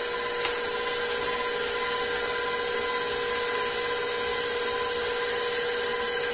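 Electric stand mixer running steadily with an even, constant-pitch motor whine as it beats cooked potatoes, turnips, celery root and onions with butter into a purée.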